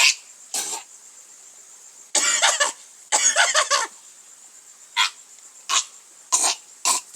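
A person coughing in a string of short, sharp coughs, with two longer, drawn-out voiced coughs in the middle, each under a second.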